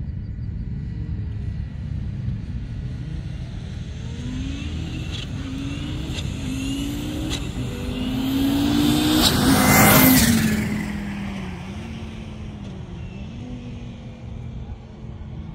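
A car accelerating hard up through the gears, the engine pitch climbing in steps with a few sharp cracks along the way, then passing close at full throttle about ten seconds in and dropping in pitch as it moves away.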